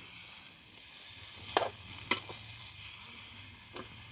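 Diced potato, carrot and cabbage frying in oil in a metal kadai with a faint steady sizzle, stirred with a metal spoon that scrapes and clinks against the pan three times.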